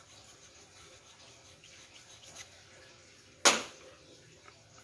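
Faint handling noise from fingers, then one sharp knock about three and a half seconds in, a hard object set down on a hard tabletop.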